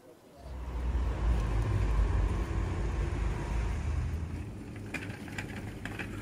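Low rumble of a motor vehicle passing close by on a street, strongest over the first few seconds and easing off. Light clicks and rattles follow near the end.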